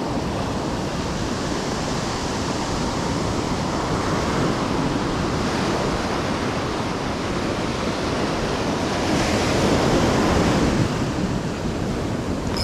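Ocean surf breaking and washing in steadily, with wind on the microphone. A wave comes in louder about nine seconds in, then eases off.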